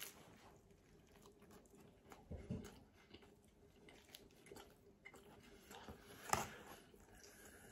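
Quiet chewing of a mouthful of pizza, with small wet mouth clicks and two louder short mouth sounds, about two and a half seconds in and again about six seconds in.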